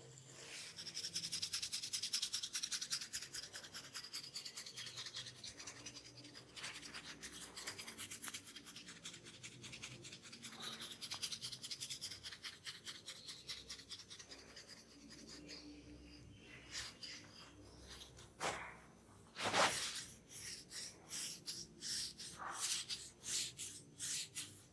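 Hands rubbing briskly over the scalp and hair in a head massage: fast, even strokes for most of the time. In the last third they give way to slower, separate strokes, one of them louder than the rest.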